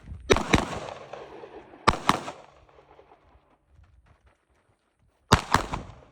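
Pistol shots in three quick clusters of two or three, about a second apart at first and then again near the end, each crack followed by a brief echoing ring.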